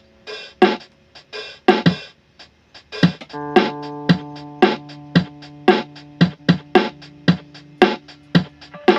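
Electric guitar played through a Joyo DC30 tube guitar amplifier: a run of sharply picked notes, with held notes ringing underneath from about three seconds in.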